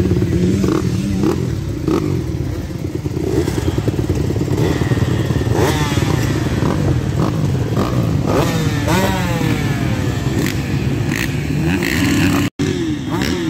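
Several motocross bikes running on the start line, their engines revved up and down repeatedly while waiting for the gate to drop. The sound cuts out for an instant near the end.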